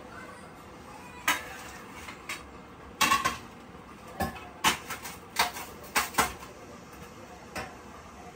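Steel kitchen utensils clinking and clattering against each other and the counter: a string of sharp knocks and clinks, several close together about three seconds in.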